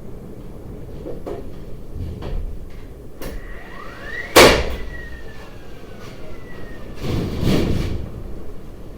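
A few light knocks, then a sharp bang about halfway through that leaves a ringing tone slowly dying away over several seconds. A rustling, scraping swell follows near the end.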